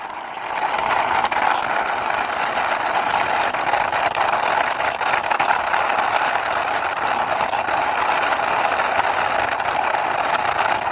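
Plastic toy auto rickshaw pushed by hand along a concrete wall, its small wheels rolling with a steady, continuous noise that builds up over the first second.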